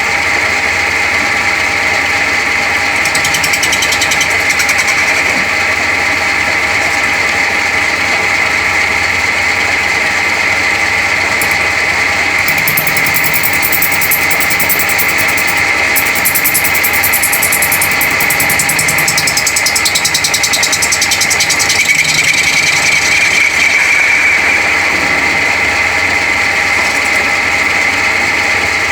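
Metalworking machine tool running with a steady whine of several fixed tones. Patches of high hiss come and go over it, typical of the tool cutting metal.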